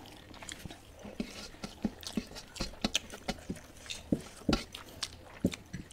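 Eating sounds: irregular soft clicks and smacks of chewing and of food being mixed and picked up from plates.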